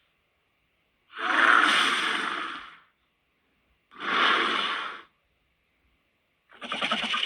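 Film monster vocal sound effect: three breathy, sigh-like creature vocalizations. The first lasts almost two seconds and the second about one. The third starts near the end with a rapid rattling pulse.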